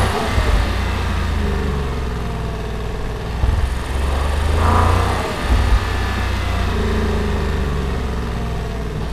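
Porsche Cayenne S's four-litre twin-turbo V8 running under way, its pitch climbing as it accelerates about halfway through, with short surges in loudness.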